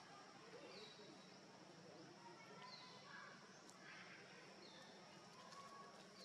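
Near silence: faint forest ambience, with a short high bird chirp repeating every second or two over a steady high insect hum.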